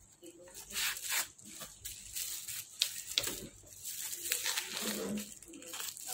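Rustling and crinkling of packaging being handled: a phone slid out of a cardboard box sleeve and a bubble-wrap bag being handled, in short bursts with a few sharp clicks.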